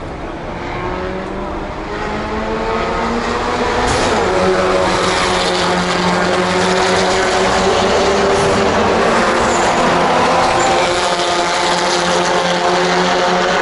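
Several racing car engines at full throttle on the circuit, getting louder over the first few seconds as the cars approach, their pitch rising as they accelerate, then holding a steady loud note of several engines together.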